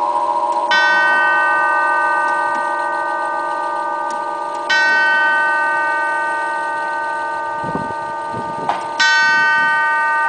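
Herschede nine-tube hall clock striking the hour on a tubular chime: three single strokes of the same tube, about four seconds apart, each ringing on long after the hit.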